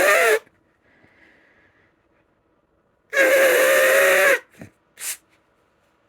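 A woman's sneeze ending just after the start, then about three seconds in a long, steady nose blow lasting over a second, followed by two short breaths; her nose is congested from allergies.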